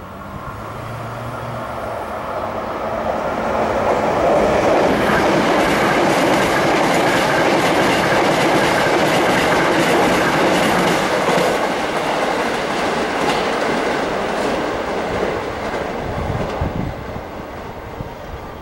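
Hankyu electric train passing close by: the running noise builds over the first few seconds, stays loud through the middle, then fades away near the end, with wheels clattering over rail joints as the cars go by.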